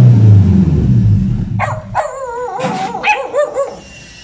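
A vehicle engine running with a low drone that eases down and fades out over the first two seconds. Then a dog barks and whines in several wavering yelps.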